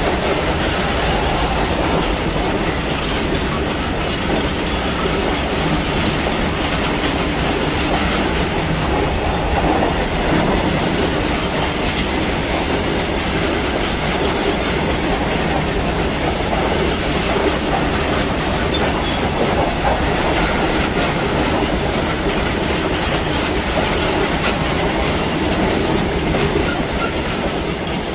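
BOXN open freight wagons rolling past at speed close by, their steel wheels rumbling and clattering on the rails in a steady loud roar. The noise starts to fall away at the very end as the brake van passes.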